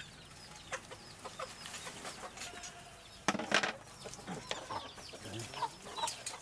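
Chickens clucking and calling on and off, with many short chirping calls scattered through, and a brief louder noise about three seconds in.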